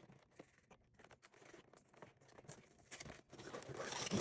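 Cardboard Pokémon TCG premium collection box being handled and pulled open: scattered small clicks and scrapes, then louder rustling of card and plastic packaging starting about three seconds in.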